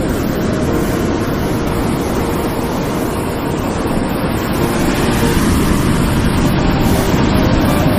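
Heavy surf breaking against rocky sea cliffs: a loud, steady roar of waves, growing a little louder about halfway through.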